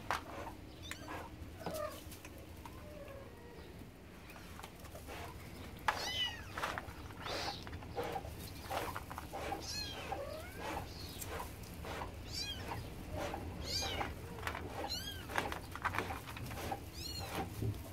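Kittens mewing: a few faint calls at first, then from about six seconds in a steady stream of short, high-pitched mews, several a second.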